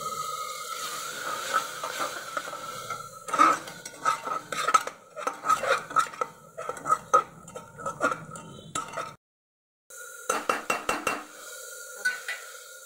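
Metal spatula stirring and scraping a masala-and-water mix in an aluminium pressure cooker: quick scrapes and clinks against the pot from about three seconds in. They break off for a moment and come back briefly near the end, over a steady faint tone.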